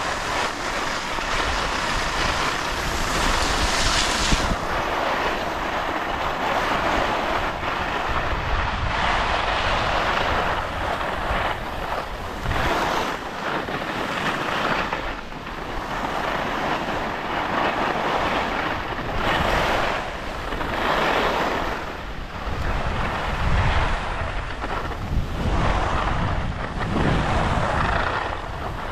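Skis sliding and scraping on packed snow, a hiss that swells and fades every second or two with the turns, mixed with wind rushing over an action camera's microphone.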